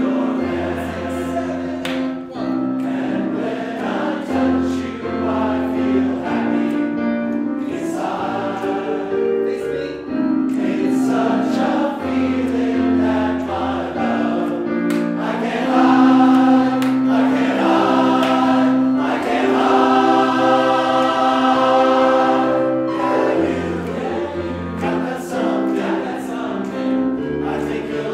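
Men's chorus singing in harmony, long held chords moving from one to the next, swelling fuller and louder a little past halfway.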